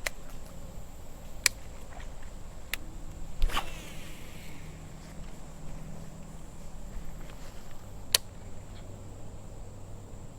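A few sharp clicks and knocks, the loudest about three and a half seconds in, over a steady outdoor background with a thin, high-pitched hum.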